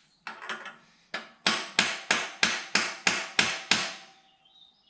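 Small mallet tapping a socket held against a VW air-cooled engine's crankshaft sand seal to drive the seal into the crankcase. A couple of light taps, then nine sharp, even strikes at about three a second.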